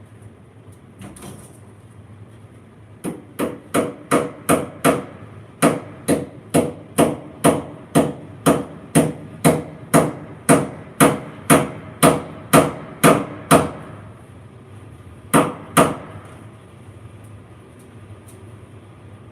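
Pliers used as a hammer, striking in a steady run of about two blows a second for some ten seconds, then a pause and two more blows. Each blow is a sharp knock with a short ring.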